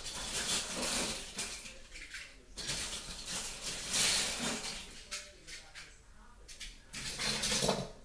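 Die-cast toy cars clattering and clinking against each other and a hard surface as they are handled, in irregular bursts, loudest about halfway through and near the end.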